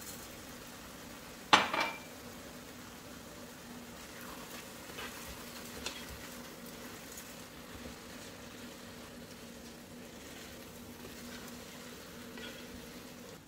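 Coarse bulgur being stirred into a sizzling tomato and pepper sauce in a stone-coated pot, with soft scrapes of the spoon and a faint steady hum underneath. A sharp double clink of a utensil against the pot about a second and a half in is the loudest sound.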